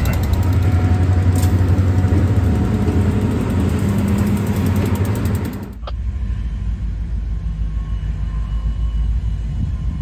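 Canadian Pacific diesel-electric locomotives passing close by, their engines running with a steady low rumble. About six seconds in, the sound cuts off abruptly with a click and gives way to a duller, steady rumble.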